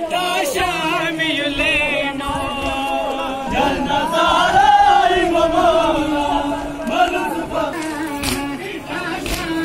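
A crowd of men chanting an Ashura mourning lament (noha) together, one voice quavering in pitch over the first two seconds. A few sharp slaps come near the end, in keeping with mourners beating their chests.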